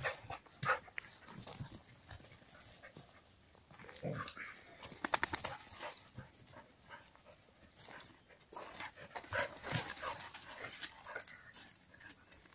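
Border collies moving about at close range: scattered short clicks and rustles of paws and footsteps, with a quick run of ticks about five seconds in and busier movement later on.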